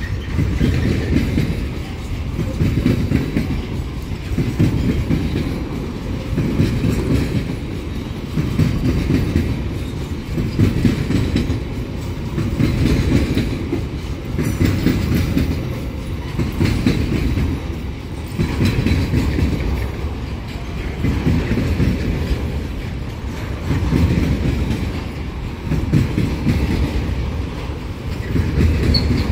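Empty freight wagons of a pulp train rolling past at speed: steel wheels clickety-clacking over the rail joints in a loud rumble that swells about every two seconds.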